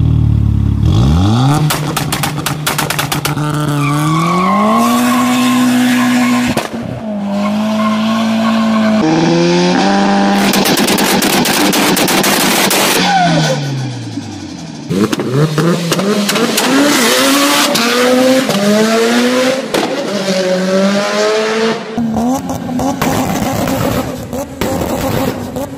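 Several different tuned cars revving and accelerating one after another, their engine notes rising and falling, with abrupt changes from one car to the next every few seconds. They include a Mitsubishi Lancer Evolution and, near the end, a Toyota Supra.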